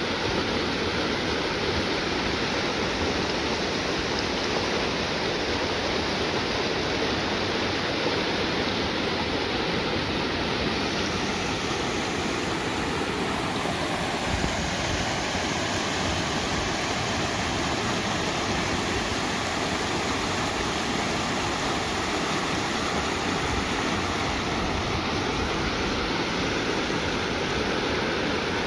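Shallow rocky river running over stones and boulders in small rapids: a steady rush of babbling water.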